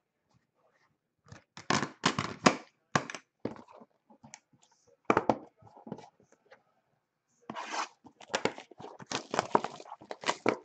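A Topps Archives Signature trading-card box being torn open by hand, with tearing and crinkling of its cardboard and wrapping. The tearing comes in several bursts, the longest near the end.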